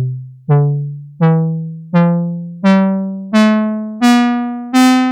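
Moog Werkstatt-01 analog synthesizer playing a rising run of about eight plucked notes, one roughly every 0.7 s, each starting sharply and fading. Every note sounds brighter than the one before because the keyboard's control voltage is patched into the filter: higher keys open the filter further.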